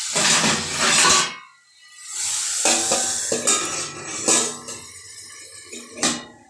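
Stainless steel lid being set on a stainless steel kadai: metal clattering and clinking with ringing tones, ending in one sharp clank about six seconds in.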